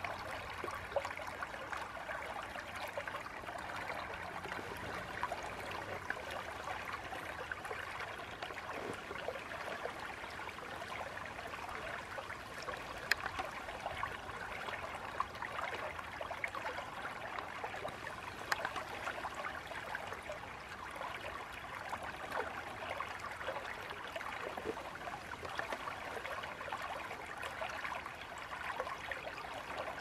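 Shallow creek water rushing over rocks in a riffle: a steady flowing sound with brief louder splashes here and there.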